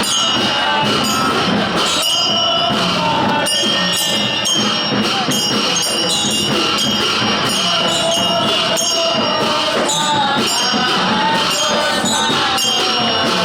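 Traditional festival procession music: percussion struck in a steady rhythm with high, ringing cymbals, and crowd voices underneath.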